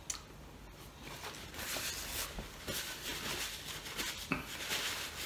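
Paper napkin rustling and crinkling as hands are wiped with it, coming and going from about a second in, after a light click at the start.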